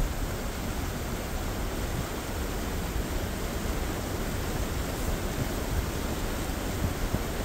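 Steady rush of a shallow river running fast over a riffle, with an uneven low rumble beneath.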